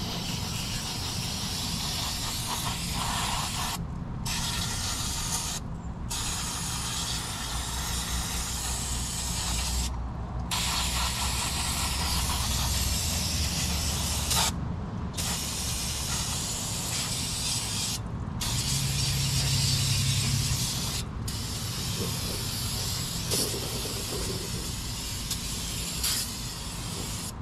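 Aerosol can spraying onto a truck's bare front wheel hub in long hissing blasts, broken by about six short pauses, over a steady low hum.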